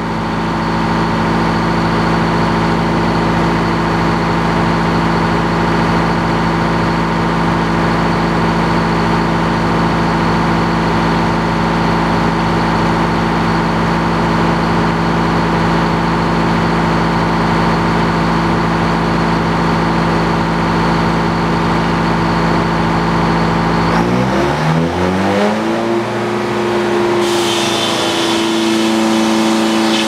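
Old circular sawmill running, the engine that drives the blade pulling steadily under load as the blade cuts through a pine log. About three-quarters through, the engine speeds up with a sharply rising pitch and settles higher as the blade comes out of the cut, and a hissing rattle joins near the end as the carriage runs back.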